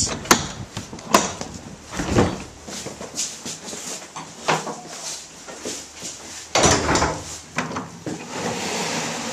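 Wooden church doors being pushed open and handled: a run of sharp clicks and knocks, with a louder clatter about six and a half seconds in.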